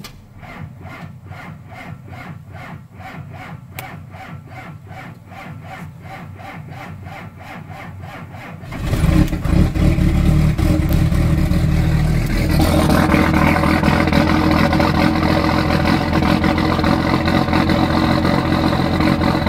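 A 1993 first-generation Dodge Ram's engine cranked by the starter in a steady rhythm for about nine seconds on a cold start, then catching and running loud, settling into a steadier run about four seconds later. The long crank is the hardest it has ever been to start, put down to the cold.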